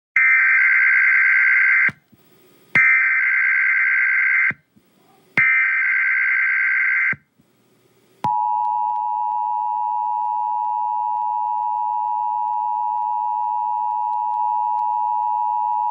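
Emergency Alert System alert tones. First come three short bursts of SAME header data tones, each lasting under two seconds with brief gaps between them. About halfway through, the steady two-tone EAS attention signal begins and holds.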